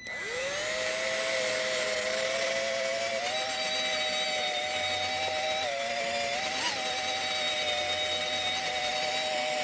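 Drill spinning an 800-grit sanding disc against a plastic headlight lens: the motor winds up as it starts, then runs as a steady whine over the hiss of sanding, its pitch dipping and recovering slightly as pressure on the lens changes.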